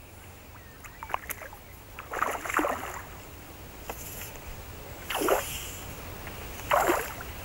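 A hooked carp splashing at the surface of the pool as it is played on a fishing pole: three short splashes, with a few small clicks before the first.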